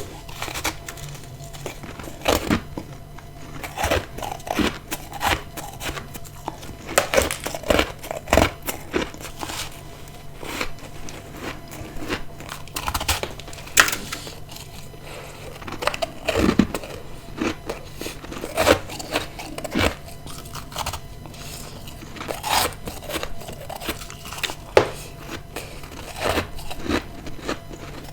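A person biting and chewing hard ice close to the microphone: sharp crunches every second or two, irregularly spaced, with a steady low hum underneath.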